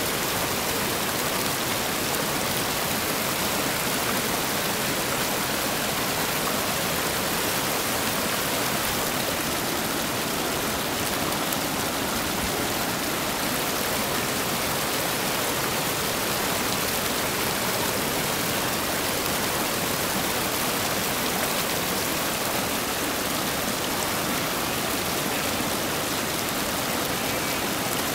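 Whitewater rapids of the Cossatot River rushing over rock ledges: a steady, unbroken rush of water.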